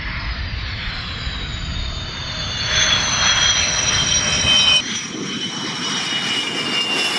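Twin Saturn AL-31F turbofans of a Sukhoi Su-27 fighter running close by, a loud jet whine over a low rumble, the whine falling slowly in pitch as the jet passes. About five seconds in it cuts abruptly to another steady jet whine with less rumble.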